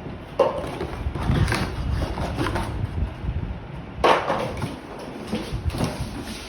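Unboxing handling noise: packaging and parts being rustled and moved, with two sharper knocks or crinkles, about half a second in and about four seconds in.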